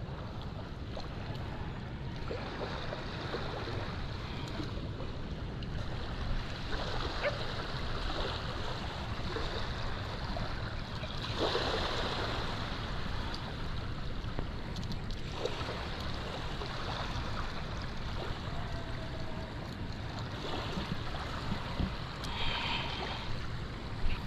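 Steady noise of moving water with a low wind rumble, swelling briefly a few times.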